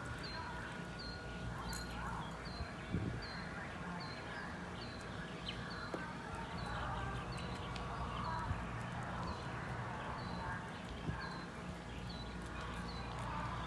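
Outdoor background: a short high chirp repeats evenly about twice a second over a steady low hum.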